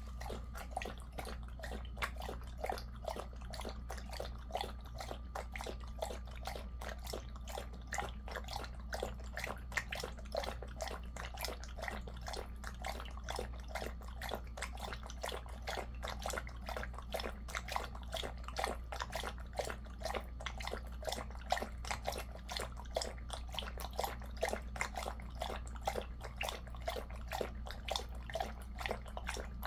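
A Jindo-mix dog lapping water from a stainless steel bowl in quick, even laps.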